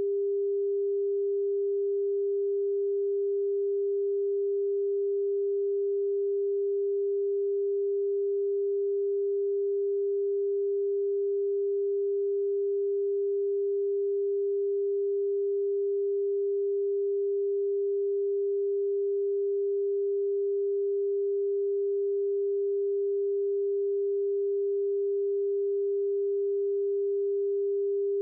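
A single steady electronic pure tone at a middle pitch, held unbroken with no change in pitch or loudness.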